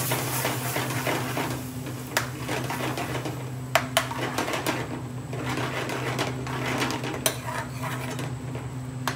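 A long metal spoon stirring and scraping thick curry sauce in a stainless steel frying pan, with a few sharp clinks of metal on the pan. Under it the sauce sizzles, loudest at first and thinning out, with a steady low hum throughout.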